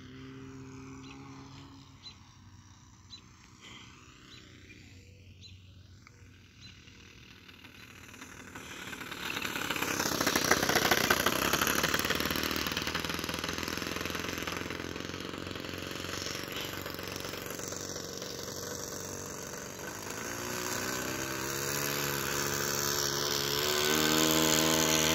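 Four-stroke engine of a radio-controlled Sea Stick float plane, faint and distant at first with its pitch sliding slowly. About nine seconds in it gets much louder as the plane runs along the water, and near the end it settles into a steady, strengthening note as it comes closer.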